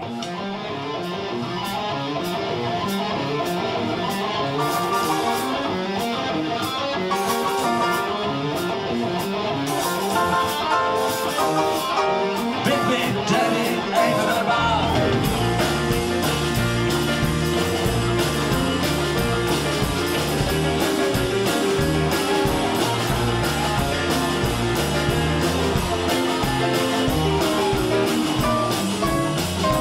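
Rock-and-roll music with guitar; the bass and a fuller beat come in about halfway through.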